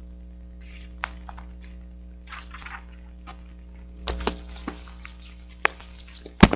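Sheet of paper and mechanical pencil being handled: scattered light clicks and short paper rustles, more rustling from about four seconds in, and one sharp knock near the end, over a steady electrical hum.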